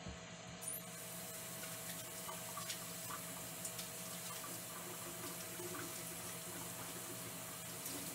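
Kitchen tap running steadily into a stainless steel sink, the water splashing over a sweet potato being rinsed by hand under the stream.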